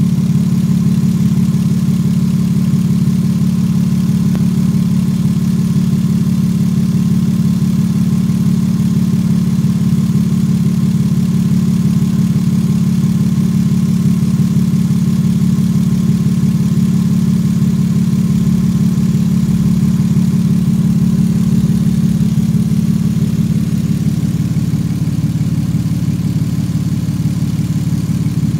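Toyota 2JZ-GE 3.0-litre straight-six petrol engine idling steadily, with no revving.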